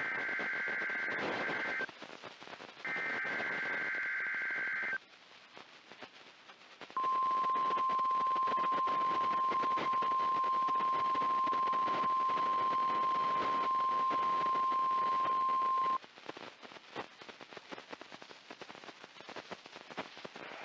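NOAA Weather Radio test alert. It opens with two shrill bursts of SAME digital header tones, about two seconds each. Then comes the steady 1050 Hz warning alarm tone, held for about nine seconds, and after it cuts off only receiver hiss remains.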